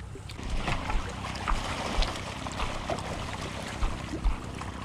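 Wind on the microphone over small waves washing against a rocky shore, with a few short knocks of footsteps and bucket handling on the stones.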